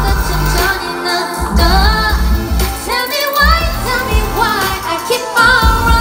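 Female pop singer singing a melody live into a handheld microphone over an amplified backing with a strong bass line, heard through the venue's sound system.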